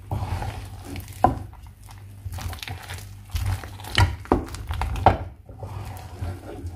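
Wooden spoon stirring and pressing thick geat porridge dough in a pot: irregular scraping with several sharp knocks of the spoon against the pot.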